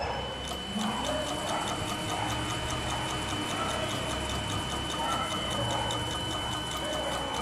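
Toroid coil winding machine running: its shuttle ring spins, pulling enamelled wire off the spool to load it, and gives a steady high whine with a regular ticking over a low motor hum. The run stops near the end.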